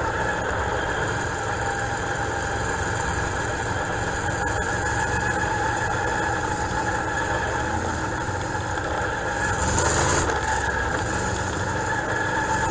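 Dirt late model race car's V8 engine running steadily, heard from inside the cockpit. A brief louder rush comes about ten seconds in.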